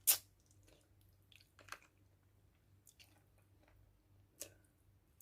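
Close-up mouth sounds of someone eating adobo chicken feet: a sharp wet smack just after the start, then a few softer chewing smacks spaced through the rest.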